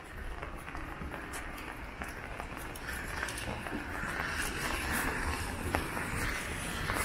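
Light rain on an umbrella: scattered drops ticking on the canopy over a steady hiss, with footsteps on wet pavement and a low rumble underneath. The sound slowly grows louder.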